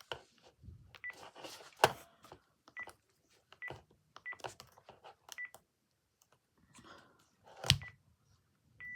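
Keypad of a Panasonic KX-PRW120 cordless phone handset as a phone number is keyed in: button clicks, each with a short high key-tone beep, about seven presses at an uneven pace. A louder knock comes about three-quarters through, and a longer beep sounds at the very end.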